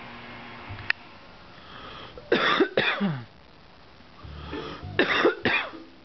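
Coughing: two coughs in quick succession, then a second pair about two and a half seconds later, with a short click about a second in.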